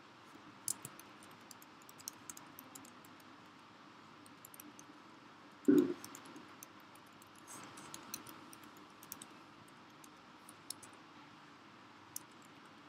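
Computer keyboard typing: irregular, scattered keystroke clicks as text is entered, with one louder thump about halfway through.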